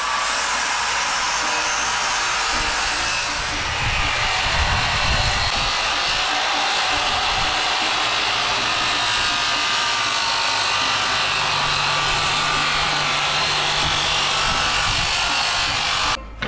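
Corded circular saw running under load, cutting lengthwise through a pine board in one long continuous cut. It stops abruptly near the end.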